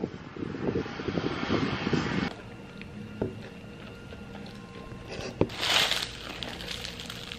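Wind buffeting the microphone for about two seconds, then it cuts to quiet room tone. Near the end comes a click and a short crinkle of a plastic bag wrapped around a snack being eaten.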